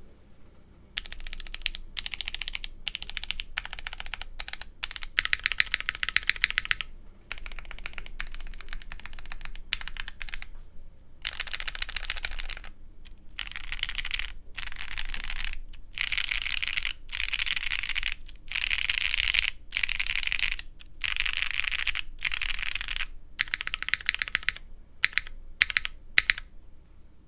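Typing on a plateless Studio Kestra Nue 60% mechanical keyboard with JWK Alpaca linear switches: dense runs of keystrokes in bursts of one to two seconds, broken by short pauses. The build is muted, and the owner notes loose switch stems that can make a couple of keys tick.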